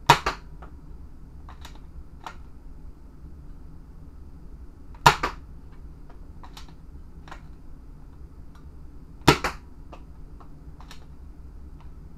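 Modded Nerf Rival Knockout blaster, air restrictor removed and stock springs in, firing three times about four to five seconds apart. Each shot is a sharp snap followed at once by a softer second click. Fainter clicks come between the shots as the blaster is worked.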